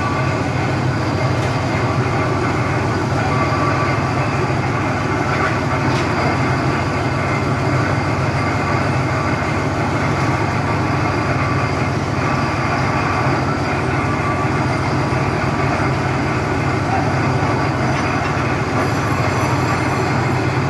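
Heavy piling machinery running steadily: a continuous low mechanical drone with no separate hammer blows.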